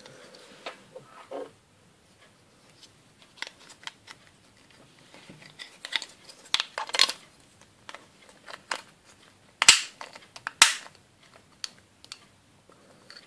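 Hard plastic Playmobil dress halves clicking and rubbing as they are handled and fitted around a figure, with two sharp clicks near the end about a second apart.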